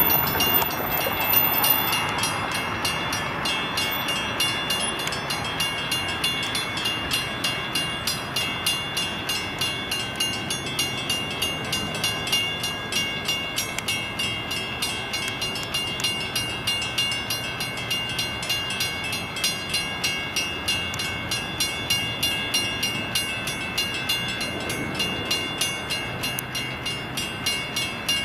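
Railroad grade-crossing warning bells ringing steadily at about two strikes a second. A louder rush of noise fades over the first couple of seconds.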